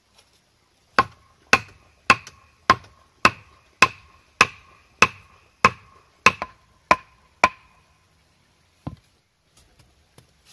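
Hammering on a woven bamboo coop panel: about a dozen evenly spaced blows, nearly two a second, each with a short ringing tone, then one last blow after a brief pause.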